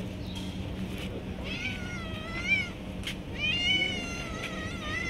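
Hungry stray cats meowing up for food: three drawn-out meows, each about a second long and wavering in pitch. A single sharp click falls between the second and the first.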